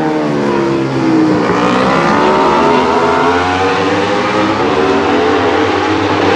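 Yamaha YZF-R1 World Superbike's inline-four engine with Akrapovic exhaust at racing speed. Its note drops for about a second and a half as the bike slows, then climbs steadily as it accelerates hard.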